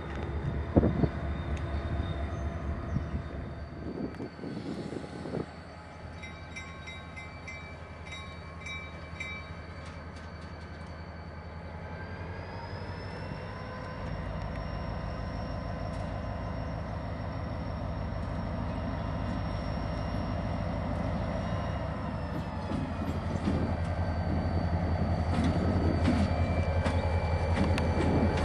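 EMD GP40-2 diesel locomotive's turbocharged 16-cylinder engine running. About halfway through it throttles up with a rising turbocharger whine, and it grows steadily louder as the locomotive moves off and draws nearer.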